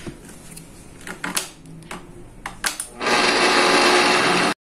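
SilentMixx Pro countertop blender running, puréeing cooked pumpkin with flour and milk: a steady, even noise that starts about three seconds in and cuts off suddenly after about a second and a half. Before it, a few light clicks and knocks.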